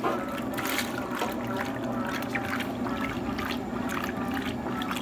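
Electrolux TOP8A top-loading washing machine at work, water sloshing and splashing in the tub in an uneven stream of small splashes over a steady low hum.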